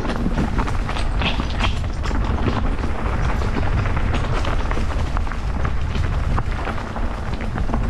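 Mountain bike riding a rough trail: steady wind rumble on the camera microphone, with many small clicks and rattles from the bike and its tyres over the ground.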